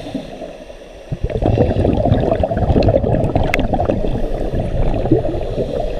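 Scuba regulator exhaust bubbles gurgling, heard underwater through the camera's housing as a muffled low rush. It dips briefly about half a second in and comes back about a second in.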